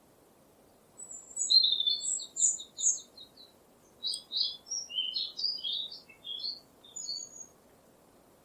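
A bird singing two phrases starting about a second in: first a quick run of repeated high notes, then, after a short pause, a string of varied notes. Faint steady background noise lies underneath.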